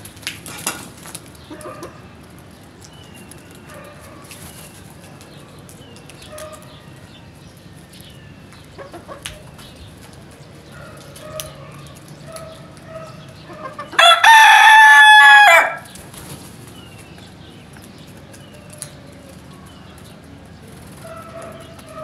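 A rooster crows once, loud and drawn out for under two seconds, about two-thirds of the way through. Short, faint bird calls come and go around it.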